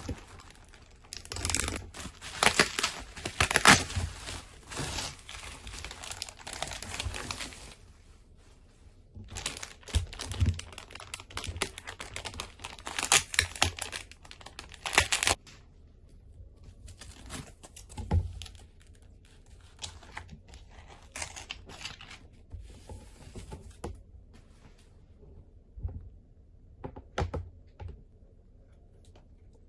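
Plastic packaging being torn open and crinkled by hand: a courier pouch and then the plastic bag around a tablet case, in two long spells of crackling rustle. Sparser rustles and a few light clicks follow near the end as the clear plastic case is unwrapped and set down.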